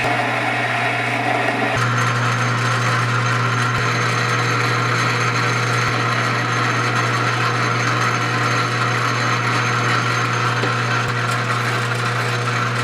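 Electric power tool running steadily while working material, with a continuous rubbing, sanding-like sound over its motor hum; the sound shifts slightly about two seconds in.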